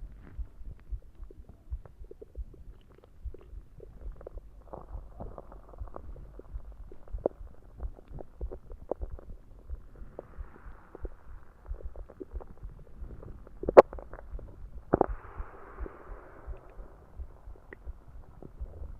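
Stomach growling and gurgling after drinking soda, the gas from the carbonated drink moving through the gut: many small irregular pops and bubbly clicks. There is one sharp loud pop about 14 seconds in, followed shortly by a longer gurgle.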